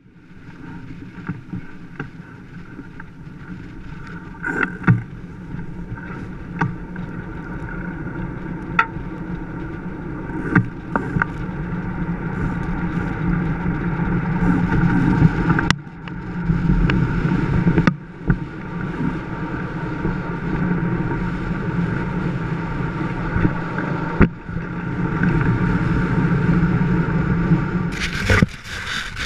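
Blokart land yacht rolling at speed over hard sand. The wheels and frame make a steady rushing rumble, with wind on the microphone and scattered sharp clicks and knocks from bumps, and it grows louder as the cart picks up speed. Near the end a burst of harsh static-like noise comes in.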